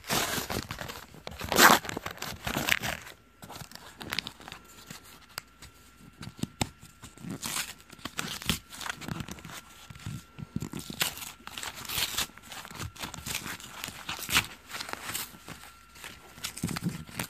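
A trading-card box of thin card being torn open by hand, with ripping and crinkling of the packaging. A run of loud tears comes in the first three seconds, then shorter, scattered tears and crinkles.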